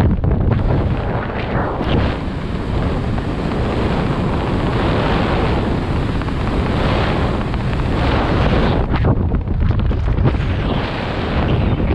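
Wind rushing over a body-mounted camera's microphone as a skydiver flies under an open parachute, steady and gusty.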